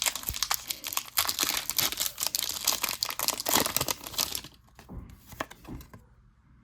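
Foil wrapper of a Pokémon booster pack crinkling and tearing as it is opened by hand: dense crackling for about four and a half seconds, then a few soft rustles before it goes quiet.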